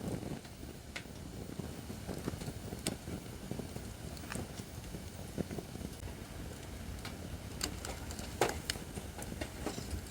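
Acacia firewood burning in a fire pit, crackling with scattered sharp pops over a steady low rumble; the loudest pop comes about eight seconds in.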